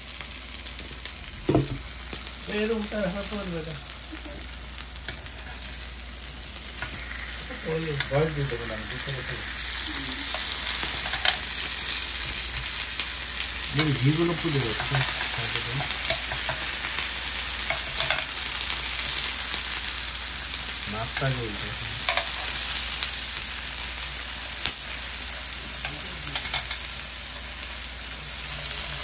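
Salmon fillets and vegetables sizzling steadily on an electric grill pan, with one sharp click about one and a half seconds in.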